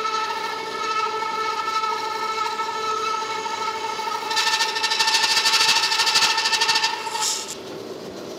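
1940 DoAll V-26 vertical band saw running with a steady whine, its blade cutting through a strip of wood. The cutting hiss grows louder about four seconds in and stops near the end as the cut finishes.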